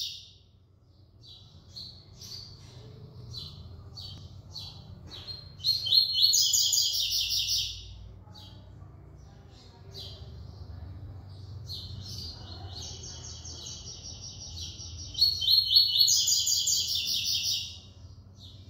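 Caged male double-collared seedeater (coleiro) singing: scattered short high chirps between two loud, fast rattling phrases, the second one long and loudest near the end.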